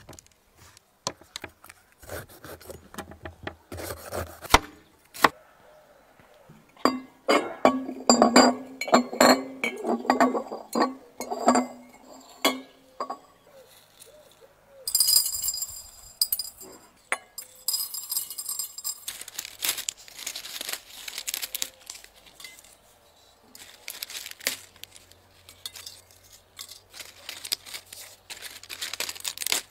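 Glass clinking and small hard spices rattling: whole allspice and peppercorns handled in a small glass bowl and dropped into glass jars. The sound is a string of short clicks and clinks, busiest in the first half.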